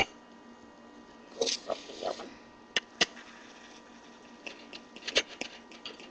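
Kitchen knife dicing cooked sausages on a cutting board: a few scattered sharp taps of the blade on the board, with softer handling sounds between them.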